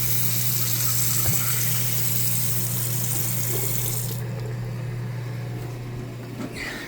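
Newly installed bathroom faucet running water into the sink as it is tested, with a steady hiss and splash. It is shut off sharply about four seconds in, and the remaining water dies away.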